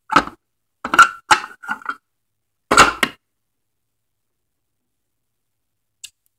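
A small plastic Littlest Pet Shop figure knocking and clattering against a shelf as it is hopped along by hand: a few sharp taps near the start, a quick cluster about a second in, and one more a little after that.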